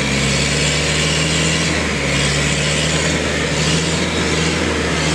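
Jeep-style 4x4 engine running hard at steady high revs as the vehicle churns through deep mud, its rear wheels spinning and flinging mud.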